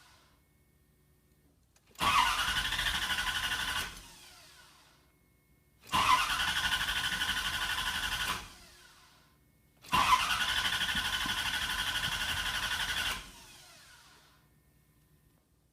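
A 1994 LT1 V8 cranking on the starter three times, each for two to three seconds, without catching. This is the hard-start fault it shows once warm: it cranks but will not fire.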